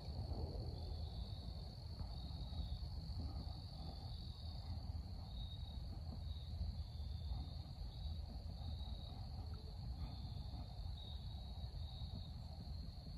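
Insects trilling in the woods: one steady high trill, with a second, slightly lower trill pulsing about once a second, over a faint low rumble.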